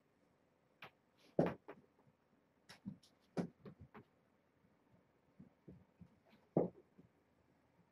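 Irregular soft thumps and scuffles of kittens scrambling about and pawing at a hand on a blanket, with two louder knocks, one about a second and a half in and one near the end.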